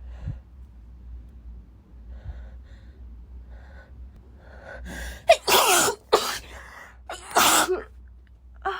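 A woman in a sneezing fit: a few faint, catching breaths build up, then two loud sneezes about two seconds apart.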